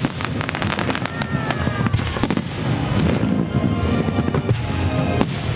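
Aerial fireworks going off over a continuous low rumble, with a rapid run of sharp crackling pops in the first couple of seconds and scattered cracks after. A brief falling whistle comes about a second in.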